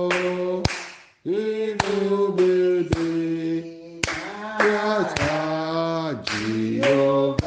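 A man singing a slow gospel praise song into a microphone in long held notes, with hand claps keeping time about twice a second. The sound cuts out for a moment about a second in, then the singing and clapping resume.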